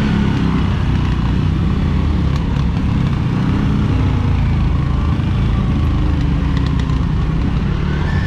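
CFMOTO CFORCE ATV engine running steadily under way on a dirt trail, heard from the rider's handlebars as a loud, even low rumble.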